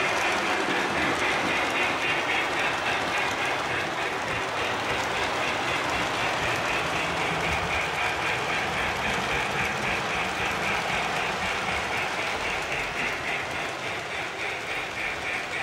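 Lionel Hogwarts Express O-gauge model train running on its track: a steady rolling rattle of the wheels on the rails with a fast, even pulse, easing off slightly near the end.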